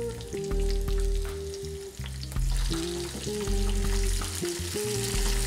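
Oil sizzling in a frying pan as sliced ají amarillo peppers, onion and garlic sauté, with a wooden spatula scraping and knocking against the pan as they are stirred. The sizzle grows louder about two and a half seconds in. Soft background music with held notes and a bass line plays underneath.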